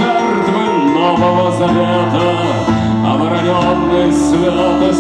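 Steel-string acoustic guitar played solo, an instrumental passage of a song with held bass notes under chords that change every second or two.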